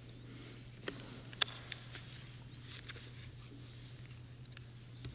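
A quiet pause with a steady low electrical hum, broken by a few small, sharp clicks and taps; the loudest comes about a second and a half in.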